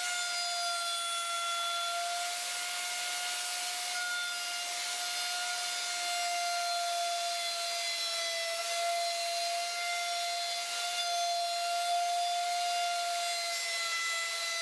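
Handheld electric router running at high speed and cutting along the edge of an oak slab: a steady high whine over a hiss of cutting, dipping slightly in pitch a few times as the bit takes the wood.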